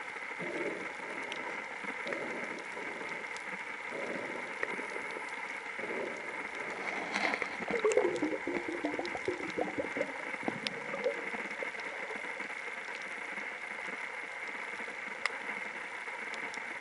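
Underwater ambience: a steady hiss with a few sharp clicks, and a stretch of gurgling bubbles about seven to eleven seconds in.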